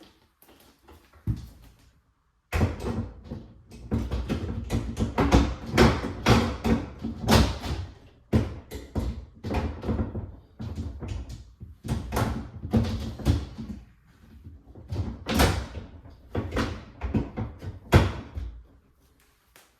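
Shelves and drawers of a Kenmore Elite refrigerator being fitted back into the cabinet: a long run of clunks and knocks, with a brief pause about two thirds of the way through.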